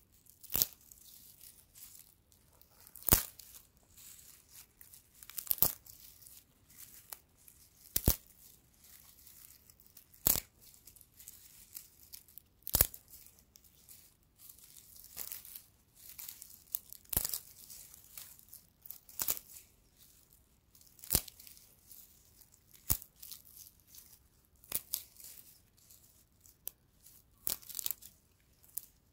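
Dry straw stalks snapping and crackling as fingers bend and break them, with a light rustle of straw between. Sharp single snaps come every two or three seconds at first; in the second half they give way to quicker clusters of smaller crackles.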